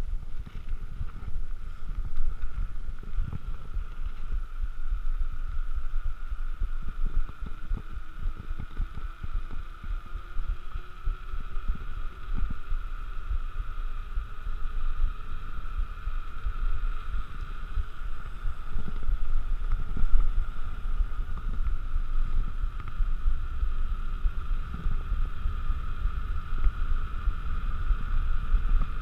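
Mountain bike rolling fast down an asphalt road: wind buffets the camera's microphone with a continuous low rumble and frequent thumps, over a steady high hum from the rolling bike.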